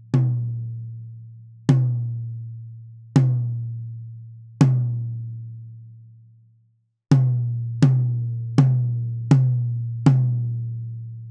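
A Pearl tom struck with a stick in single hits, heard through its close microphone alone, each stroke ringing out at a low, steady pitch and slowly fading. There are five evenly spaced hits, a short break, then five quicker ones. The first set was recorded with the mic clamped on the drum's rim, the second with it on a stand.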